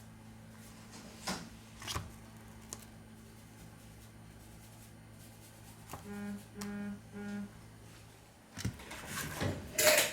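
Three short, identical electronic beeps in quick succession around the middle, after a couple of sharp clicks. Near the end comes a louder scraping and handling noise of tools and parts on the bench.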